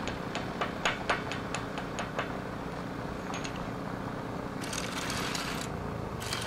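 An engine running steadily, with a quick, irregular run of sharp taps in the first two seconds, two more near the middle, and about a second of hissing noise around five seconds in.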